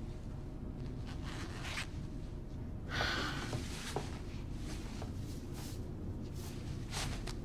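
Low steady hum of a quiet elevator car, with a short burst of rustling about three seconds in and a few faint soft rustles and ticks.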